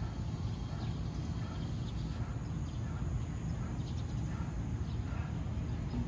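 Steady low outdoor background rumble with faint, short, high chirps repeating about twice a second.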